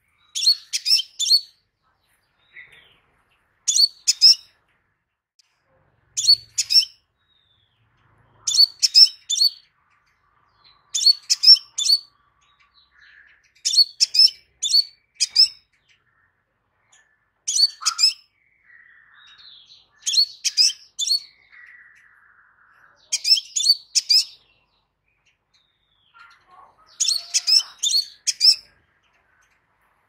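Crimson sunbird calling: short bursts of three to five sharp, high chirps, about one burst every two to three seconds, with faint softer twitters between the bursts.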